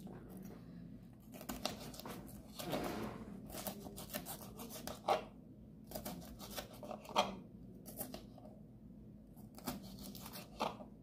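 Kitchen knife slicing a red bell pepper into strips on a cutting board: irregular strokes of the blade through the pepper and down onto the board, a dozen or so, with short pauses between them.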